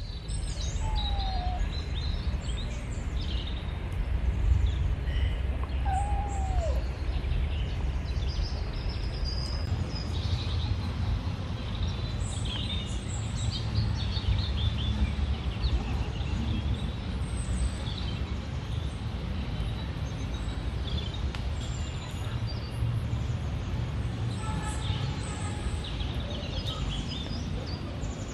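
Outdoor ambience: small birds chirping on and off over a steady low rumble.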